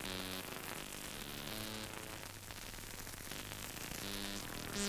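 Soft background music: a slow melody of short held notes, heard over the faint steady hiss of an old film soundtrack.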